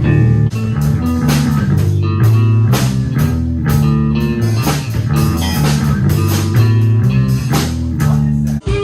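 Rock band playing: electric guitar, bass and drum kit in a heavy, steady groove that breaks off abruptly near the end.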